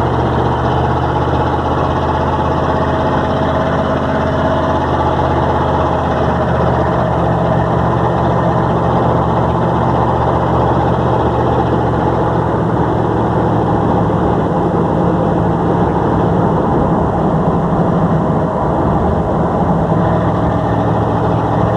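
Motor vehicle engine running steadily, with a constant low hum and noise that holds an even level throughout.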